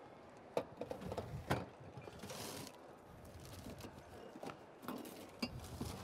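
Scattered light knocks and clinks of glasses and bottles being handled on a bar counter, with a brief hiss a little after two seconds in.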